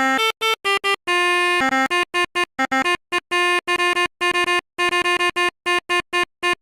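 Basuri pianika bus horn playing a quick melody: short, clipped notes with silent gaps between them and a few held a little longer, with a reedy, keyboard-like tone.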